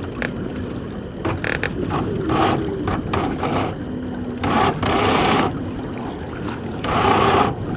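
Wind and water noise aboard a small sailboat under way, with three louder rushes of noise, the longest about five seconds in lasting around a second.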